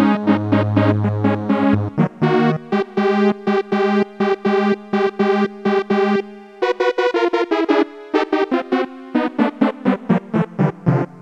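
Casio SA-10 electronic keyboard played by hand: quick runs of short pitched notes over a held low note, in a bright synthesized keyboard voice. The low note drops to a new pitch about two-thirds of the way through.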